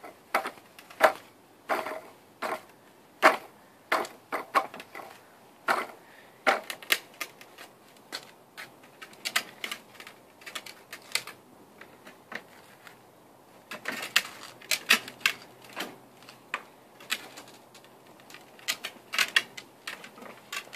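Irregular sharp clicks and clacks of hard plastic from a toddler's Fisher-Price tricycle being handled and shifted about on concrete, coming in quick clusters.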